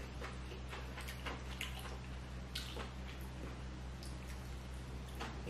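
Quiet, wet chewing and mouth sounds of someone eating lobster meat, with scattered small clicks over a steady low hum.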